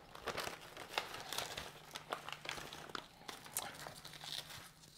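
White packing paper crinkling and rustling as it is unfolded from around a potted plant, with many irregular small crackles.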